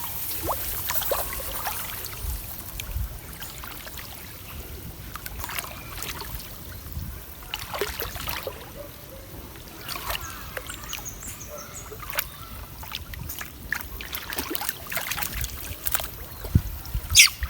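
Water trickling and splashing, with scattered small clicks and knocks and a louder burst near the end.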